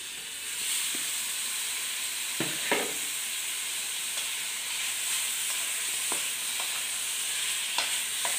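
Marinated chicken pieces sizzling steadily in hot coconut oil in a metal kadai, the sizzle building in the first second as the chicken goes in. A wooden spatula knocks and scrapes against the pan a few times while the pieces are spread and stirred.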